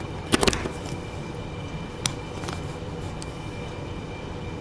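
Sharp metallic clicks as the last .32 cartridge is loaded into a pistol magazine, the magazine pressed down over the round in the groove of a homemade wooden loader. The loudest is a quick cluster of clicks about half a second in, followed by a few single clicks over the next three seconds.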